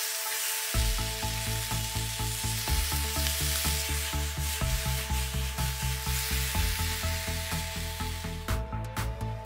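Meat sizzling in oil in a hot cast-iron skillet, with background music carrying a steady bass beat. The sizzle cuts off suddenly near the end, leaving only the music.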